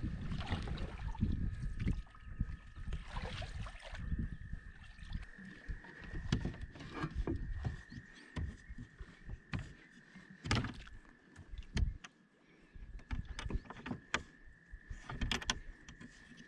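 Canoe being paddled: a wooden paddle dipping and splashing in the water, with scattered sharp knocks and clicks of the paddle and gear against the hull. A faint, steady high whine runs underneath.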